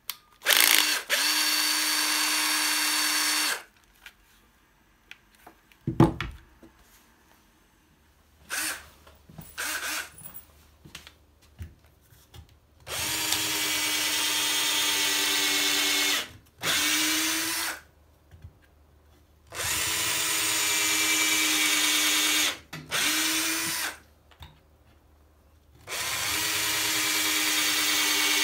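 Makita 6222D 9.6 V cordless drill driver, freshly serviced, running in repeated bursts with a steady motor whine: first briefly on its own, then drilling holes into a wooden board with a small twist bit, in runs of a few seconds with short pauses between. A single sharp knock about six seconds in.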